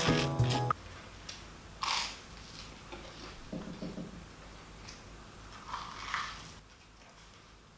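Background music cuts off a little under a second in. Then a person bites and chews crunchy toast, with a louder crunch about two seconds in and quieter chewing after it.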